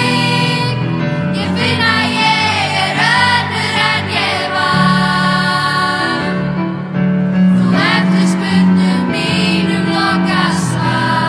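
Youth girls' gospel choir singing together, accompanied by grand piano.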